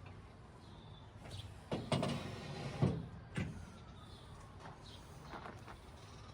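A few knocks and a short scraping slide from heavy parts being handled while a replacement hydraulic lift cylinder is moved into place on a skid steer: a knock about two seconds in with a brief scrape, then two or three more knocks over the next second and a half.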